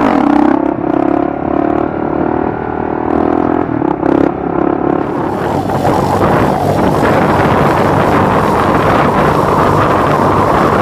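Motorcycle engine running under way, a steady engine note for about the first five seconds. After that a rougher, hissier engine sound takes over.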